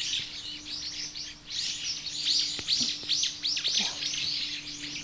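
Songbirds chirping: a quick run of many short, high, downward-sliding calls overlapping one another, busier from about a second and a half in.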